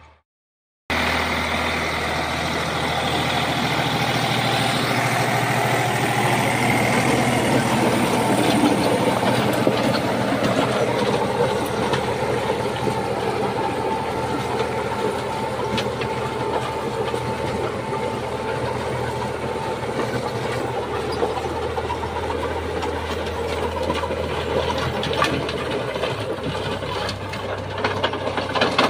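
Eicher 485 tractor's three-cylinder diesel engine running steadily under load while a Soil King rotavator's spinning blades churn dry soil, a dense mechanical clatter with occasional sharp ticks. The sound cuts in abruptly about a second in, after a moment of silence.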